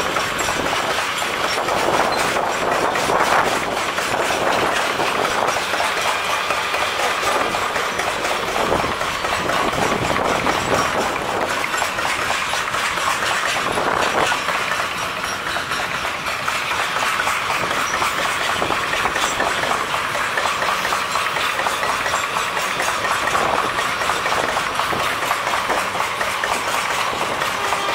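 A long goods train of open-top freight wagons rolling past close by. The wheels clatter steadily over the rail joints.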